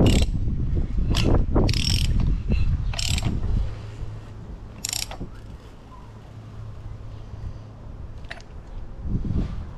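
A ratcheting wrench clicks on the flywheel nut of a 2003 Yamaha 40 hp four-stroke outboard as it turns the crankshaft by hand to bring the engine to top dead center. Sharp ratchet clicks come in a run over the first five seconds, with a single fainter click near the end.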